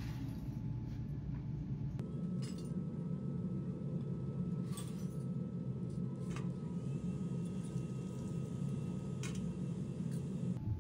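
Steady low rumble of a brass-melting crucible furnace burning, with a few light metallic clinks of brass scrap pieces being handled.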